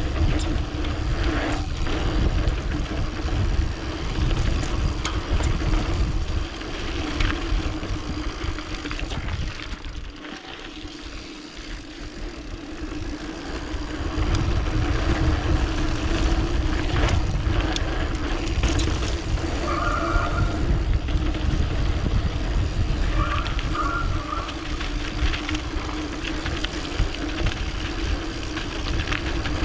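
Mountain bike rolling fast down a dirt flow trail, heard from an action camera on the bike or rider: wind buffeting the microphone, a steady hum from the knobby tyres on hard-packed dirt, and the clicks and rattles of the bike over bumps. It eases off for a couple of seconds about ten seconds in, then picks up again.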